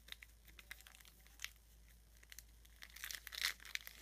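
Foil wrapper of a trading-card pack being torn open and crinkled by hand: scattered faint crackles, then a louder burst of tearing and crinkling about three seconds in.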